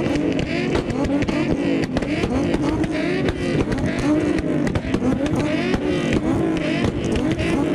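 Car engines being revved hard over and over, the pitch climbing and dropping about twice a second, with sharp pops scattered through it.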